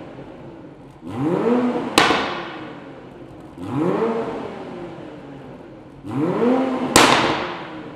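Toyota GR Supra's turbocharged 3.0 L inline-six blipped three times through a Fi Exhaust valvetronic cat-back with the valves open, each rev rising and falling quickly. The first and third blips end in a sharp crack from the exhaust as the revs drop.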